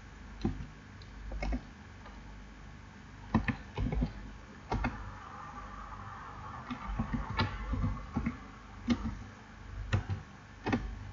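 Computer keyboard being typed on: irregular single key taps and short runs of taps with pauses between them.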